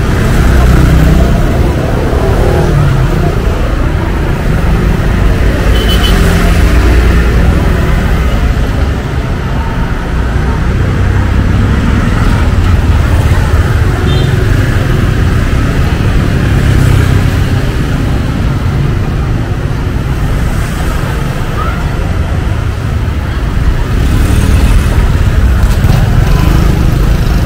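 Street traffic: cars and motorbikes running and passing, a steady loud rumble of engines and road noise with faint voices in the mix.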